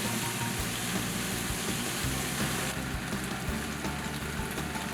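Tofu frying in oil in a pan, sizzling, with background music underneath; the sizzle drops off a little under three seconds in.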